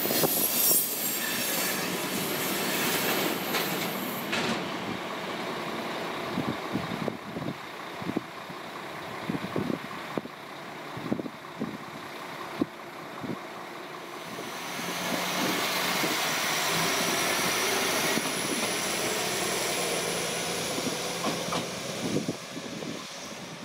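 Train wheels moving over station track. A high squeal at first gives way to scattered knocks over rail joints and points, and a second high squeal swells up about fifteen seconds in and fades near the end.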